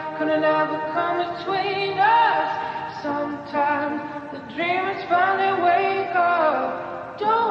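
Background music with a singing voice whose notes slide and curl over a sustained accompaniment.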